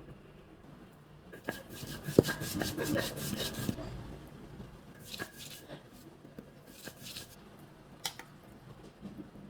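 Kitchen handling noise: a burst of rubbing and scraping with a sharp knock about two seconds in, then a few shorter scrapes and a click near the end.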